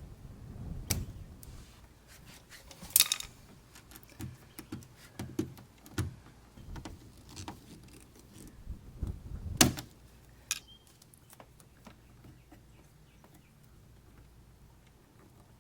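Irregular clicks, taps and light metallic clinks of hand tools and small hardware being handled, with louder clatters about three seconds in and again near ten seconds.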